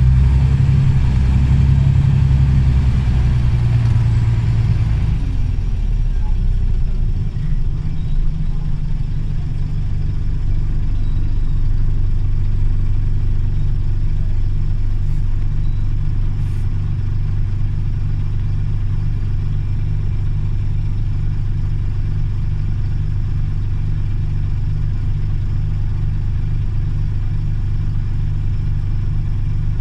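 Scania OmniCity CN94UA city bus engine running: it pulls harder for the first few seconds, then falls back about five seconds in to a steady idle hum.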